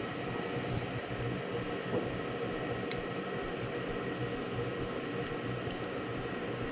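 Gas furnace running: a steady motor hum with rushing air, with a couple of faint ticks about five seconds in.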